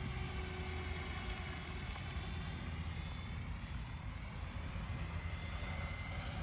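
XL Power 550 electric RC helicopter flying at a distance at low head speed, about 1,200 rpm: a steady rotor hum with a faint high whine from the electric motor and drive.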